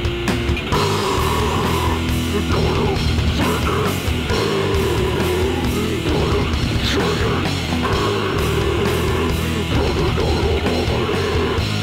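Death/nu-metal/hardcore band playing live: heavy distorted guitars, bass and pounding drums, loud and steady.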